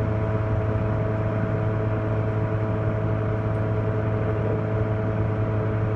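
Lincoln PowerWave 455M welding power source running on test, its cooling fan whirring. The sound is a steady, even hum, with a strong low tone and several constant higher tones over it.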